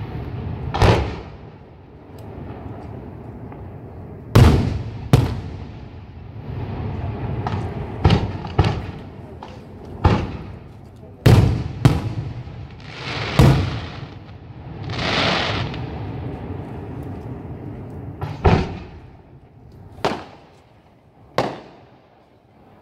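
Aerial firework shells bursting in a display: about a dozen sharp bangs at irregular intervals, with a longer hissing crackle a little past the middle.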